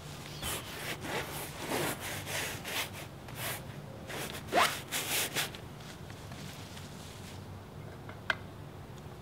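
Bristle brush dragging oil paint across a large canvas in a quick series of rough scrubbing strokes, which stop about halfway through. A single short sharp click near the end.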